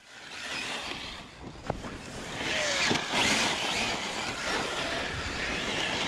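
Radio-controlled rally car tearing across loose dirt, a steady rushing hiss of tyres and spraying grit, with a sharp tick about a second and a half in.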